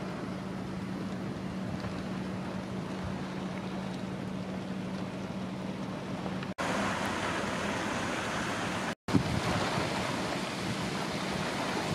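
Steady rush of hurricane wind outdoors, with a low steady hum underneath for the first half. The sound drops out for a moment twice, the second time about three-quarters of the way through.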